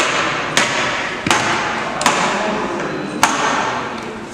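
Five sharp knocks and clicks from musical instruments, their cases and a grand piano's lid being handled and opened, each ringing out in a large, echoing room.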